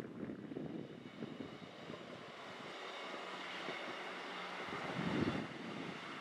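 Class 158 diesel multiple unit passing at speed: a steady drone of engine and wheels that builds as it goes by, loudest about five seconds in. Wind gusts on the microphone in the first couple of seconds.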